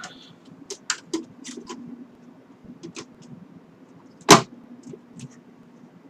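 Scattered light clicks and taps, with one loud knock about four seconds in, as a graphics card is handled and pushed toward its expansion slot inside a Power Mac G5's metal case. A low steady hum runs underneath.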